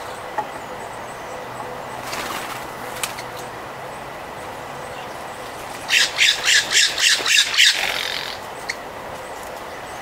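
California scrub-jay giving a run of about eight harsh, rasping squawks, about four a second, lasting a little under two seconds.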